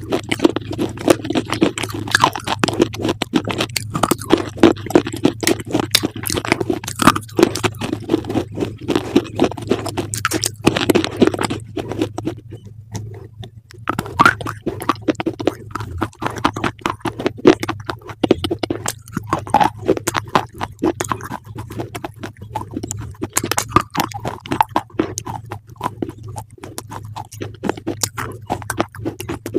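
Close-up crunchy chewing: dense, sharp crackles of crisp food being bitten and chewed, pausing briefly about halfway through, over a steady low hum.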